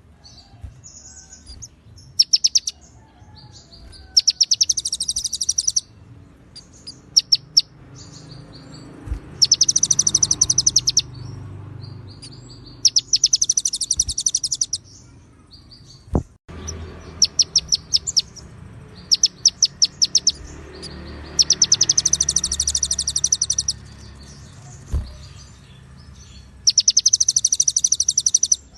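Small songbird singing fast, very high, buzzy trills in bursts of one to two seconds with short pauses between. The bird is a konin (kolibri ninja) whose song carries cililin and ciblek phrases. A couple of faint clicks sound partway through.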